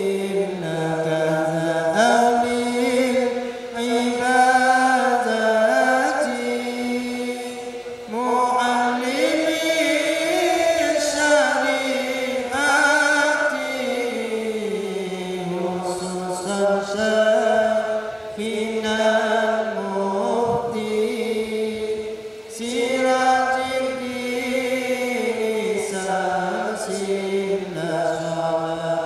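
Arabic devotional chanting sung in slow, long-held melodic phrases that rise and fall, with a short break between phrases every few seconds.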